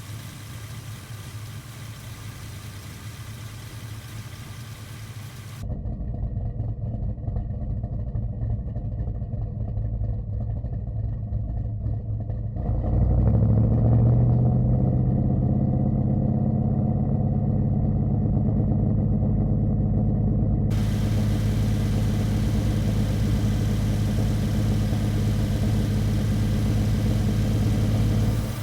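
Modified 1970 Chevy Chevelle's 486ci V8 with 3-inch Flowmaster exhausts running steadily, in several takes cut one after another. It gets clearly louder and deeper a little before halfway and holds there to the end.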